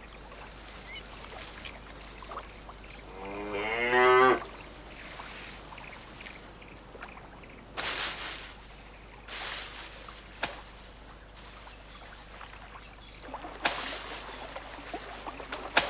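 A cow mooing once, a single drawn-out call lasting about a second, a few seconds in. Later come three short rustling noises.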